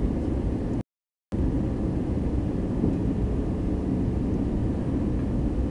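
Steady cabin noise of a jet airliner in flight: the underwing turbofan engines and the airflow, heard from inside the cabin. The sound cuts out completely for about half a second about a second in.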